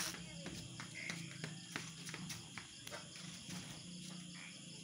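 Crickets chirring steadily, with a few faint clicks over them.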